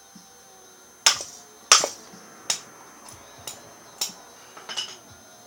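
A hammer tapping on metal engine parts: about seven sharp metallic taps, irregularly spaced, the loudest two in the first two seconds.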